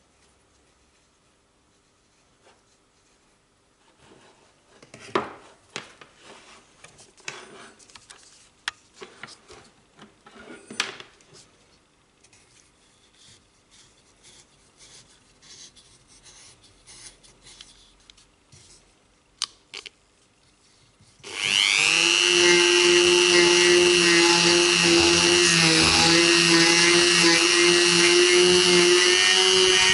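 Clicks and light rubbing as a rotary tool with a felt polishing bob is set into the throat of a 1911 .45 barrel. About twenty seconds in, the rotary tool starts up, its whine rising quickly to a steady high pitch as it spins the felt bob with polishing compound against the feed ramp.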